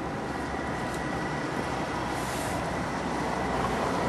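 Steady road traffic noise, a vehicle engine running under an even wash of sound.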